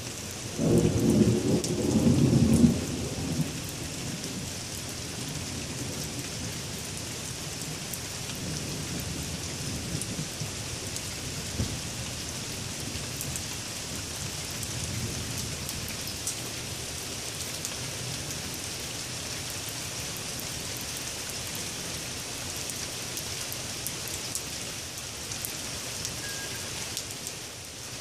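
Steady rain falling on a street and trees, with a loud rumble of thunder in the first seconds that dies away about three seconds in.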